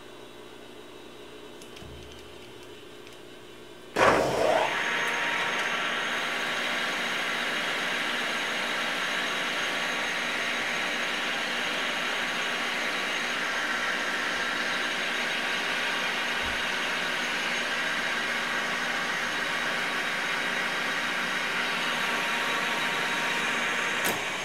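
Emco V13 lathe switching on about four seconds in, its four-jaw chuck spinning up with a short rising whine, then the spindle running steadily with a constant whine while the tool takes a cut on a small steel part. A click near the end.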